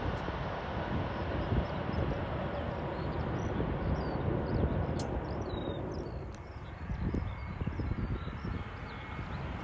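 Outdoor airfield background: an uneven low rumble of wind buffeting and distant aircraft noise. Faint, short bird chirps come through in the middle.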